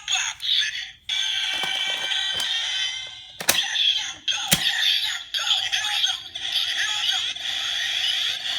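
Kamen Rider Ex-Aid Gashacon Key Slasher toy and its Gashats playing electronic sounds through small built-in speakers: a short electronic voice call, then a looping synthesized standby tune as the Gashats activate. Two sharp clicks a second apart come in the middle.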